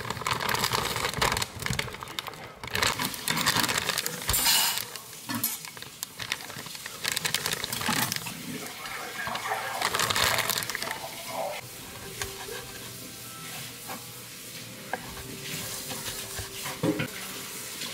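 Kitchen food-prep handling: plastic packaging crinkling and rustling as blocks of frozen udon and sheets of Korean fish cake are unwrapped and set down on a wooden cutting board and a metal tray. It goes quieter partway through, and near the end a kitchen knife cuts into the fish cake sheets with a sharp knock on the board.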